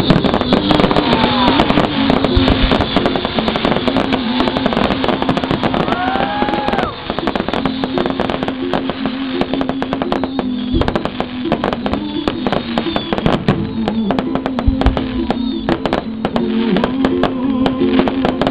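Fireworks display: a dense, continuous crackling and popping of bursting aerial shells, with a couple of short whistles about six seconds in.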